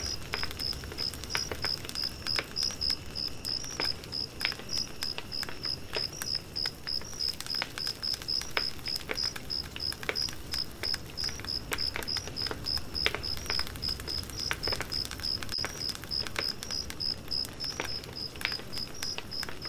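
Cricket chirping at a steady, even rate of about two to three high chirps a second, over irregular sharp crackles and pops from a wood campfire.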